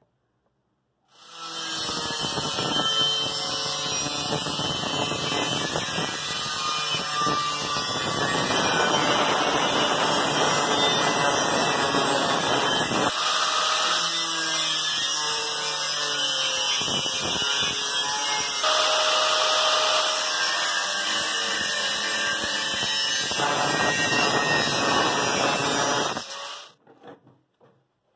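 Handheld angle grinder cutting through a clamped rectangular metal tube. It starts about a second in and runs continuously, its tone shifting several times as the disc bites. It stops abruptly near the end.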